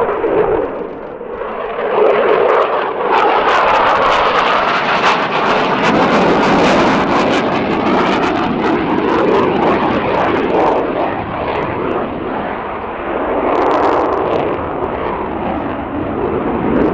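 Saab JAS 39E Gripen's single General Electric F414G turbofan, a loud jet roar with a crackling edge as the fighter flies past. It dips about a second in, comes back up and stays loud, then swells again near the end.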